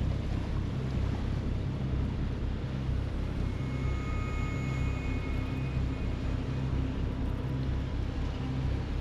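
Sailing catamaran's engine running steadily under way, a low drone, with wind noise on the microphone.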